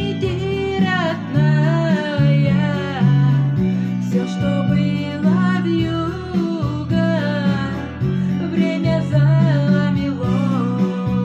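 A song: a voice singing over acoustic guitar.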